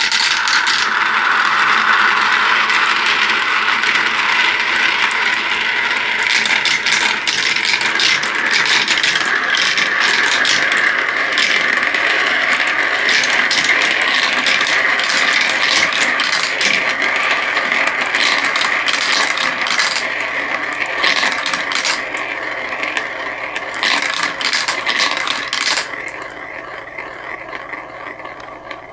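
Many marbles rolling and clattering down a marble run, a dense continuous rattle of clicks that thins out and gets quieter in the last few seconds.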